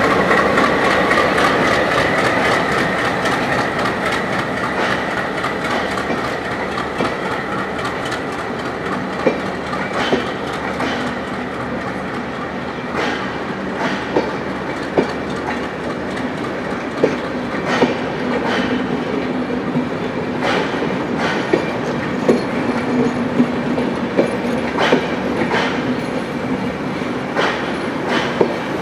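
Bangladesh Railway's Sundarban Express, a diesel-hauled passenger train, rolling past as it departs: first the locomotive, then the intercity coaches. The wheels click over rail joints, and the clicks come more often in the second half.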